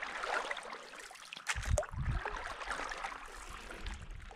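Paddle dipping and splashing in calm water, with water trickling off the blade, and a few dull low knocks about a second and a half to two seconds in.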